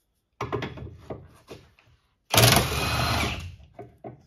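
Electric impact wrench hammering in one loud burst of about a second, loosening a nut on a car's transmission crossmember. Before it comes about a second of clicks and short rattles.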